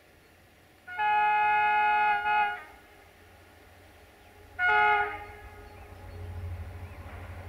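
Horn of a CFR class 65 'Jimmy' diesel locomotive sounding from inside the tunnel: a long multi-tone blast about a second in, then a short one, the warning before it emerges. A low engine rumble rises as the locomotive approaches near the end.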